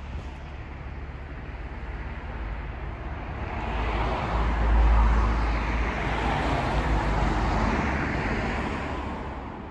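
Road traffic: a car going past, its engine and tyre noise swelling to loudest about halfway through and fading near the end, over a steady low rumble.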